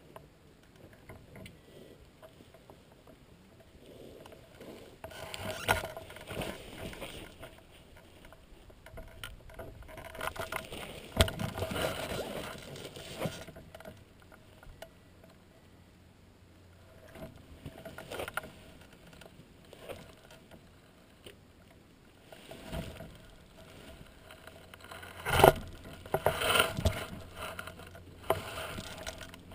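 Gusts of wind buffeting the microphone in irregular swells that come and go every few seconds, with a few sharper knocks, the strongest about twenty-five seconds in.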